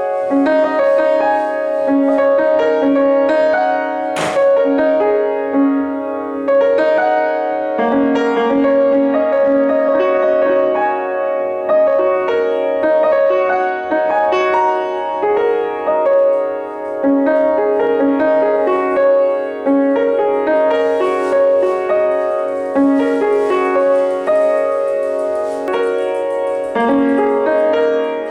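Background piano music: a slow, steady piece of sustained chords.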